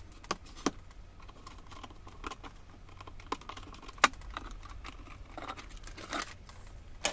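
Scattered clicks and knocks from hands and a tool working the perforated fibreboard back panel off a Unitra Diora Śnieżnik R502 table radio, with one sharper knock about four seconds in.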